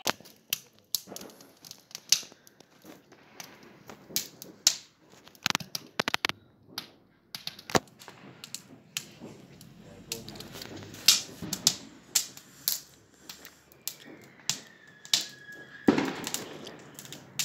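Firecrackers going off all around on New Year's Eve: irregular sharp bangs and pops, some close together, the loudest one near the end, with a brief falling whistle just before it.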